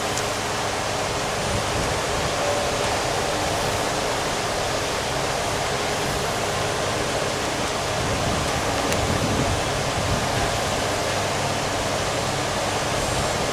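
Steady rushing hiss of a fan running, with a faint low hum under it.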